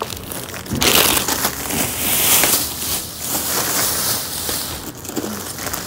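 Plastic produce bags and packaged vegetables crinkling and rustling as a hand rummages through them, growing louder about a second in.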